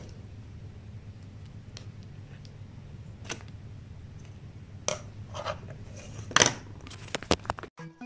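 Scattered clicks, taps and scrapes of a plastic toothbrush and a sugar glider's claws on a wooden floor as the glider grapples with and bites the brush, over a low steady hum. The loudest tap comes about two thirds of the way in, followed by a quick run of clicks near the end.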